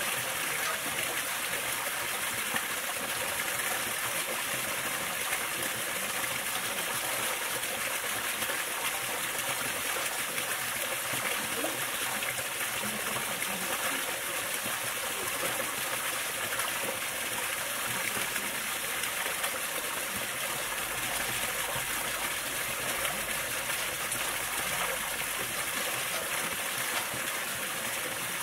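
Steady rushing of running water, an even hiss with no change in level. No bell strikes are heard.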